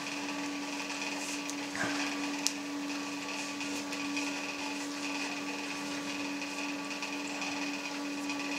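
A steady, even hum at one pitch, with a faint click about two and a half seconds in.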